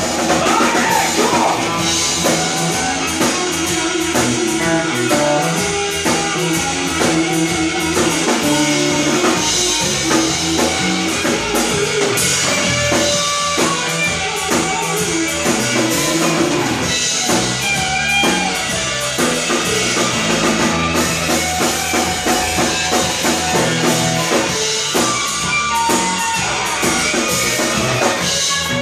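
Rock music played by a band, with guitar and a drum kit keeping a steady beat.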